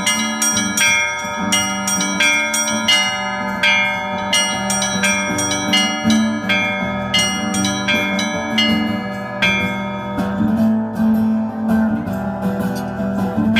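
Russian church bells rung by hand in a quick rhythmic pattern: the small bells strike several times a second over a steady lower ringing tone. About ten seconds in, the quick high strikes thin out.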